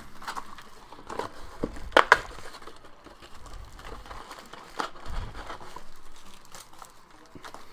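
Trading-card packaging being handled as a hobby box of card packs is opened: the wrappers crinkle and crackle, with a couple of sharp clicks about two seconds in.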